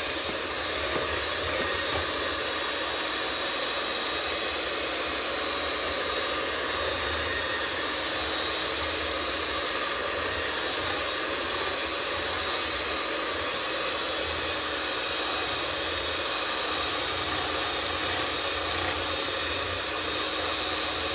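Hamilton Beach electric hand mixer running steadily, its beaters whipping a chocolate pudding mixture until it thickens like whipped cream.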